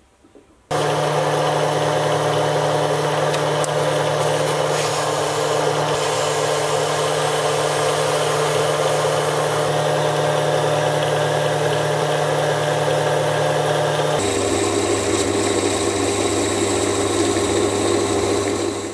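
Small metal lathe starting up about a second in and running steadily with a whine and several steady motor and gear tones while the cold drawn steel workpiece spins in the chuck against the tailstock centre. About 14 seconds in the tone shifts, as with a change of spindle speed or load, and it stops abruptly at the end.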